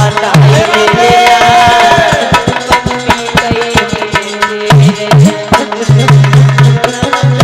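Loud Indian devotional folk music. A fast tabla-like hand-drum beat with heavy low strokes plays under a melodic instrument line, with no singing.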